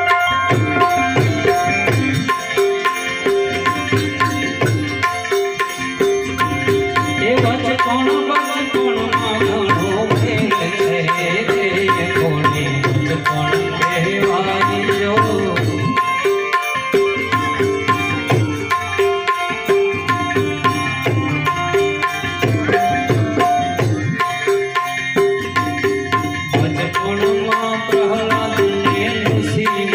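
Devotional dhun music: a harmonium holding steady chords over a running tabla and percussion rhythm.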